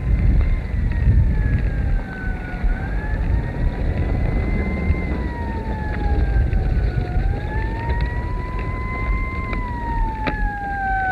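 Emergency-vehicle siren wailing, its pitch sliding slowly up and down, each rise or fall taking about two to three seconds, over a low rumble. A couple of sharp clicks come near the end.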